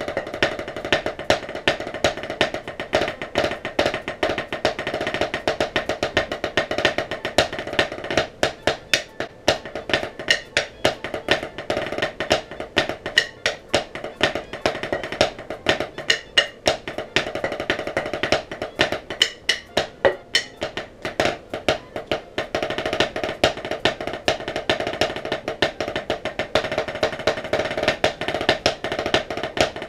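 Drumsticks played fast on a drum practice pad: dense rudiment patterns and rolls of sharp, dry strokes. Through the middle the playing opens into spaced, heavy accents, then fills back in to rapid strokes near the end.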